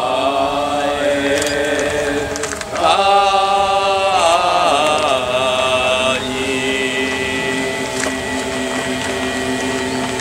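A group of voices chanting in long held notes, the pitch stepping up about three seconds in, wavering, then settling lower about six seconds in.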